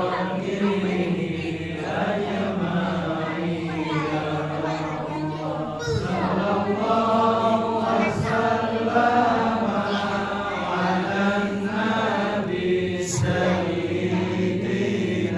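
A congregation of men chanting an Islamic devotional chant together in long, held tones.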